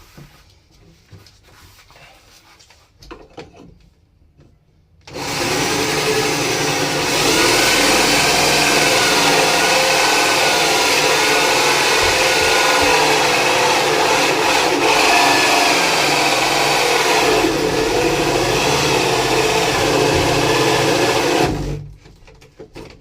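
Electric drill driving a hole saw through a hollow-core door. It starts about five seconds in and runs steadily for about sixteen seconds, its pitch wavering as the saw cuts, then stops.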